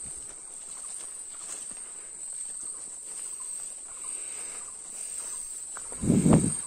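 Steady high-pitched insect drone, with footsteps rustling through forest undergrowth and a loud low thump about six seconds in.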